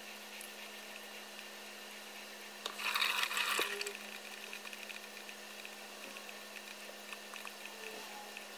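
Straight razor being honed on a wet Japanese natural whetstone: faint scraping strokes over a steady low hum, with a louder burst of hissing noise lasting about a second, about three seconds in.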